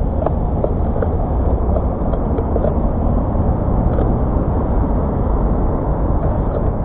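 Steady rumble of wind and tyre noise picked up by an action camera on a moving bicycle, with a few light clicks and rattles.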